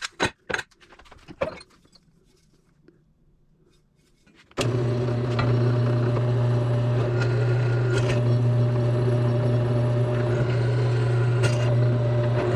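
A few metallic clinks and knocks, then about four and a half seconds in an electric motor starts suddenly and runs at a steady, even hum.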